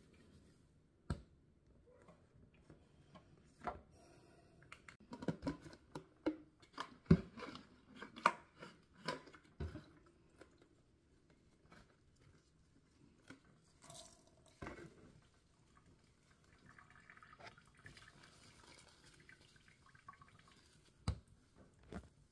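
Scattered light clicks, taps and rustles of plastic spice bottles and a disinfecting-wipes canister being handled and wiped down. They come thickest in the first half, with two sharper knocks near the end.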